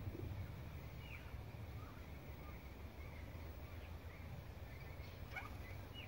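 A few faint, short bird calls scattered over a steady low rumble.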